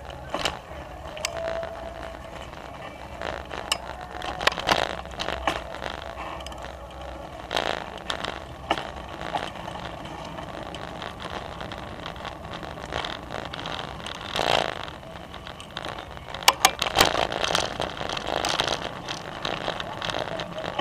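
Bicycle rolling over brick paving and cracked asphalt: steady tyre and ride noise with frequent rattles and sharp knocks over bumps, in clusters through the ride and most densely a little before the end.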